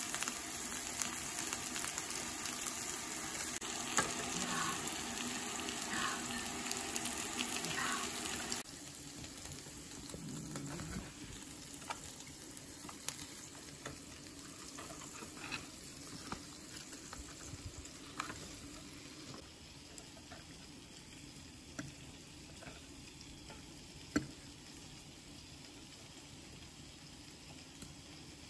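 Meat and mushrooms sizzling on a tabletop electric grill plate, a steady hiss of frying. About a third of the way through it drops abruptly to a quieter hiss, with scattered light clicks.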